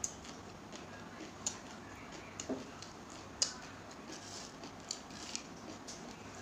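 Eating sounds close to the microphone: chewing and mouth noises broken by sharp crunches or clicks about once a second, from bites of a crunchy fried snack mix.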